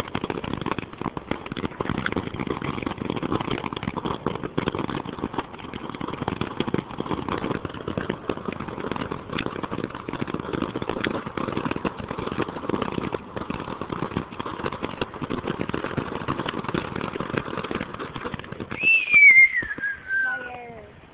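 Ground fountain firework spraying sparks with a dense, steady crackle and hiss that dies away about nineteen seconds in. A loud whistle falling in pitch follows near the end.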